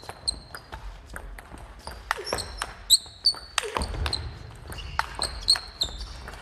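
Table tennis rally: the ball clicks in quick succession off the bats and the table, with short high squeaks of players' shoes on the sports hall floor mixed in.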